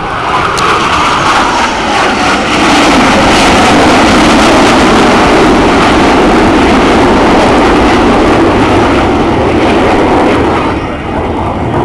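Blue Angels F/A-18 Hornet jets making a loud, low pass. The jet noise swells at the start, holds with its pitch sinking as the aircraft go by, and eases off near the end.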